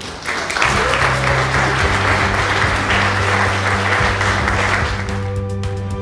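Guests applauding, breaking out just after the start and dying away about five seconds in, over soft background music.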